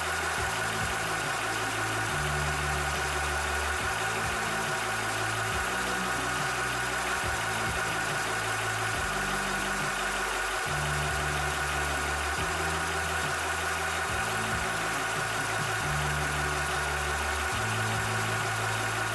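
Cobra high-pressure PCP air compressor running steadily while pumping, a constant motor hum with a steady high-pitched whine over it.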